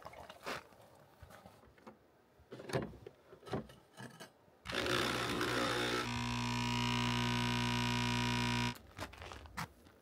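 Capsule espresso machine brewing: a noisy rush about four and a half seconds in, then the pump's steady buzz for almost three seconds as coffee pours into a steel cup, cutting off suddenly. A few light knocks and clicks of handling come before it.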